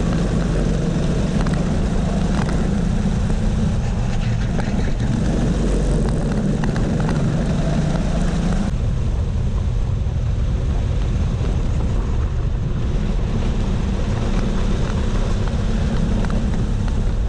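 Kart engine running hard at racing speed, heard close up from the kart itself along with wind and track noise. The engine note eases for a few seconds just past halfway, then picks up again.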